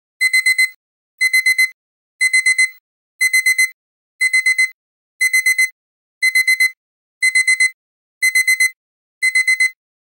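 Electronic alarm-clock beeping, in groups of four quick high beeps repeating about once a second: the finishing alarm of a countdown timer signalling that the time is up.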